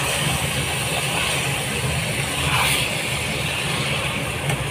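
Okra masala sizzling in a nonstick frying pan as it is stirred and scraped with a spatula, over a steady low machine hum.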